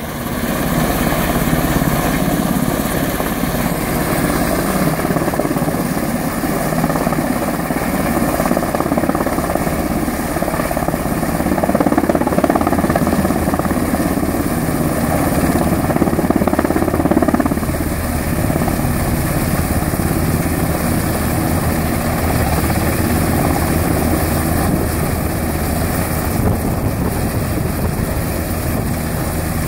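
US Coast Guard MH-60T Jayhawk helicopter hovering close by, its rotor and turbine engines running steadily, slightly louder around the middle.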